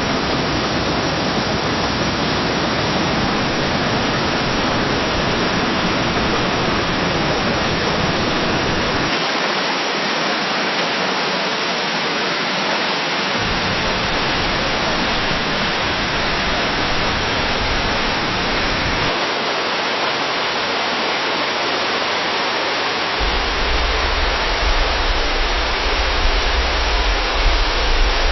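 Waterfall water cascading down a cliff: a steady, dense rushing with no pitch. The deep rumble underneath drops away and comes back several times, and near the end it grows heavier, with uneven surges.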